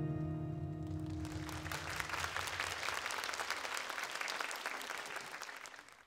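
The song's last held chord dies away over the first two seconds as a concert audience applauds. The applause cuts off suddenly near the end.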